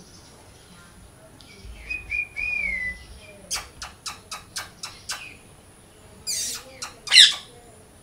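Macaws calling: a short warbling whistle, then a quick run of about seven sharp clicks, then two harsh squawks, the second one, near the end, the loudest.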